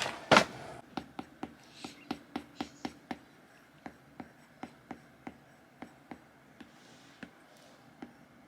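A cough right at the start, then a run of light, sharp clicks and taps, two or three a second, growing sparser toward the end.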